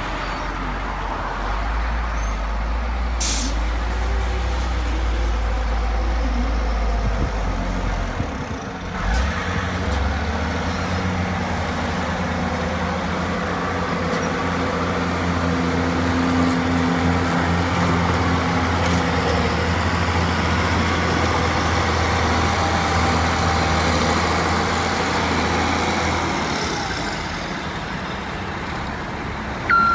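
Heavy diesel construction vehicles running steadily, with a short sharp hiss about three seconds in. The engine note shifts about nine seconds in and eases off near the end.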